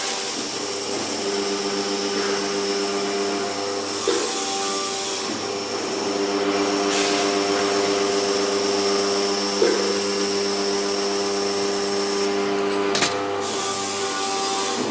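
Industrial laser machine running: a steady electrical hum under a high hiss. The hiss drops away near the end and a few small knocks follow.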